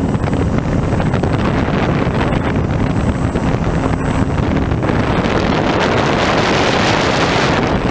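Steady wind rushing over the microphone of a camera on board a flying FPV model plane, with the drone of its motor and propeller underneath.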